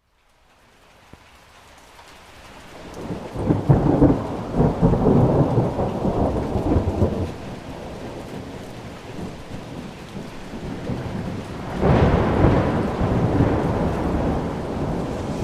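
Thunder rolling over steady rain. The sound rises from near silence into a long rumble that is loudest a few seconds in, and a second, sharper crack and rumble comes near the end.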